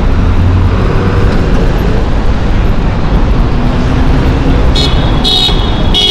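Busy city street traffic: a steady, loud rumble of passing cars and buses, with a short high-pitched squeal twice near the end.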